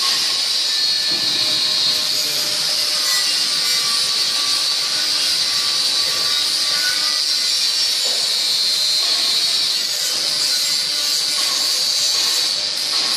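Steady, loud high-pitched hiss with faint steady tones beneath it, no breaks or changes.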